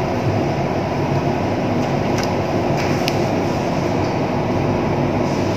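Steady rushing background noise, with a few faint clicks about two to three seconds in as a chef's knife cuts through a sheet of fresh pasta dough onto the board.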